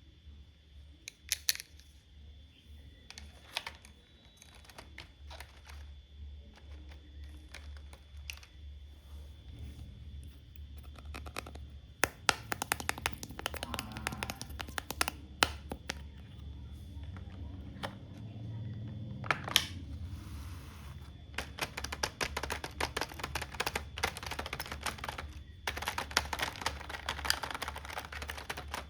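Small plastic toy doctor-set pieces being handled, with scattered taps and runs of rapid clicking and rattling.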